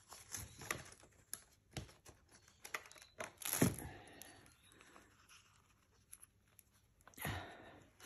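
Paper rustling and tearing as small scraps of paper are handled, with scattered light clicks; louder bursts of rustling come about three and a half seconds in and again near the end.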